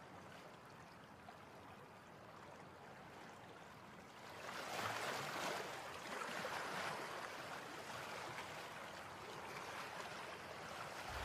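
Faint sea water washing and splashing, louder from about four and a half seconds in.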